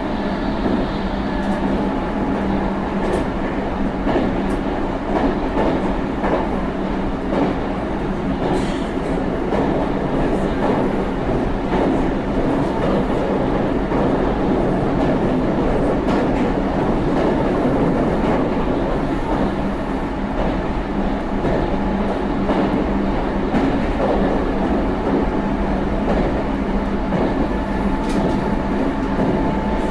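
Running sound of a Meitetsu 3500 series GTO-VVVF electric multiple unit travelling at a steady pace: wheel and rail noise with occasional clicks over rail joints under a few steady hums.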